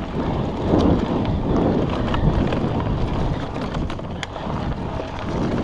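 Wind rushing over the action camera's microphone as an electric mountain bike rolls fast down a dirt forest trail, with a steady tyre rumble and a few sharp rattles from the bike, the clearest about four seconds in.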